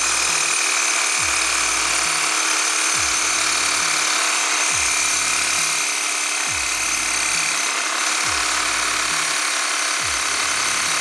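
Ryobi reciprocating saw running steadily, its blade sawing into a new steel coil spring: a harsh, continuous metal-cutting grind with a faint high ringing tone through it.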